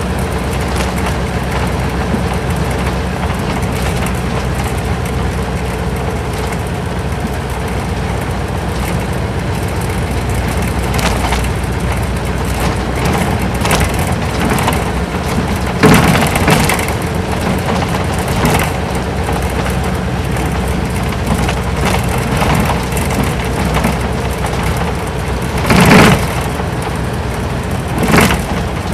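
Isuzu Cubic city bus's V8 diesel engine running steadily while the bus is under way, heard from inside the cabin. A few sudden loud knocks or rattles cut in, about halfway through and twice near the end.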